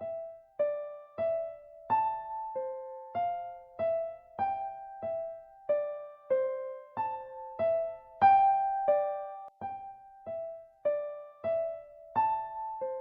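Casio CTK-2200 portable keyboard playing a slow, gentle melody with a piano voice. The notes come singly, about one every half-second, each struck and then fading.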